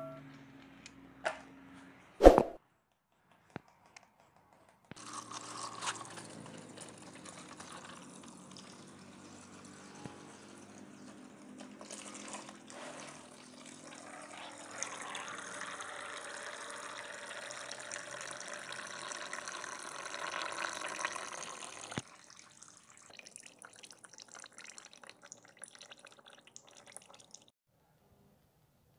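Old engine oil running in a steady stream out of a car's open sump drain hole, falling off to scattered drips near the end. A single sharp knock about two seconds in is the loudest sound.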